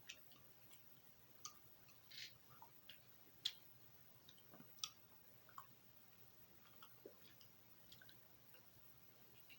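Faint, irregular mouth clicks and smacks of someone chewing gum, the sharpest about three and a half and five seconds in.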